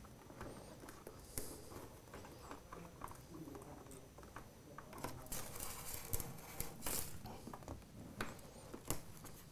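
Faint handling noise: insulated wires rustling and scraping against the printer's clear acrylic frame panels as they are fed through, with scattered light clicks and taps, busiest about five to seven seconds in.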